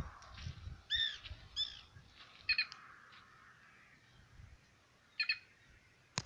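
An unidentified bird calling: two arched calls about a second in and half a second apart, then short clipped calls twice later on. A sharp click comes at the very end.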